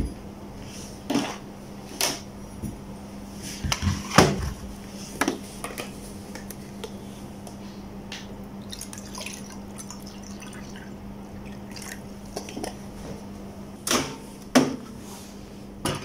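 Water poured from a plastic bottle into a mug, with a few sharp knocks of objects being handled and set down, bunched in the first few seconds and again near the end, over a low steady hum.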